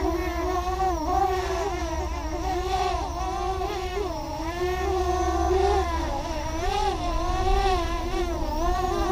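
Electric motors and propellers of an OFM Swift TR260 tilt-rotor racing quadcopter buzzing in flight, the pitch rising and dipping again and again as the throttle changes through its manoeuvres.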